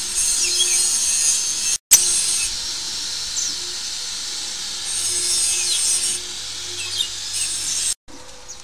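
Small electric flour mixer running while flour is poured in: its paddles churn the flour in a stainless-steel hopper, a steady harsh scraping hiss. The sound drops out for an instant about two seconds in and again near the end.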